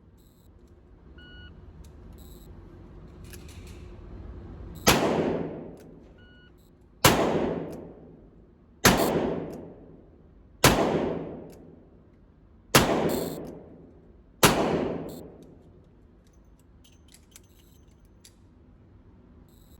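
Six revolver shots fired one at a time, roughly two seconds apart, each a sharp crack with a long fading ring after it.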